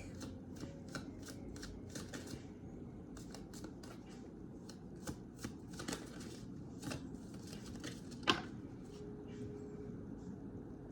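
Tarot cards being shuffled and handled: a continual run of soft, irregular papery clicks, with one sharper snap about eight seconds in.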